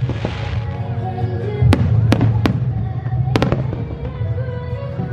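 Fireworks display: a hissing shower fades out within the first half second, then about five sharp bangs of bursting shells come between roughly 1.5 and 3.5 seconds in, two of them close together, with music playing underneath.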